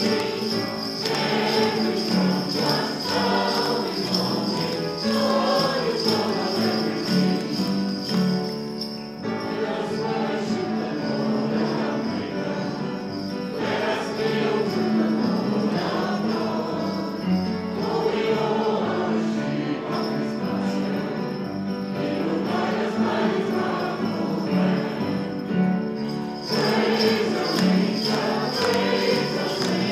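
Congregation singing a lively hymn with musical accompaniment, with children shaking jingle bells along with the song.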